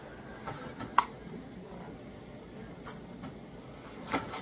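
Cardboard mac and cheese box being torn open by hand, with light scraping of the cardboard, a sharp snap about a second in and another just before the end.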